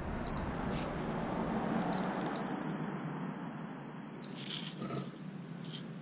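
Digital multimeter's continuity beeper giving a high steady tone: two short beeps, then one held for nearly two seconds while the test probes make contact, signalling a closed circuit. Faint handling rustle of the probe leads underneath.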